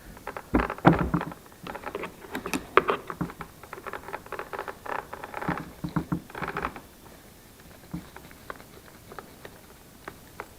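Rapid, irregular plastic clicks, taps and scraping as a replacement plastic back cover is worked off and onto a DeWalt cordless chainsaw, busy for about seven seconds and then thinning to a few scattered clicks.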